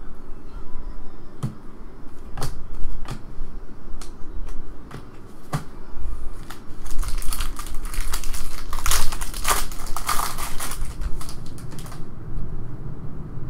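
Trading cards clicking and snapping as they are handled and set down, then the foil wrapper of a Panini Prizm card pack being torn open and crinkled, a dense crackling loudest from about seven to eleven seconds in.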